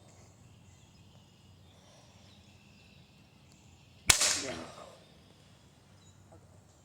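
One sharp, loud crack of a hard blow on a ceiling fan about four seconds in, fading over about a second.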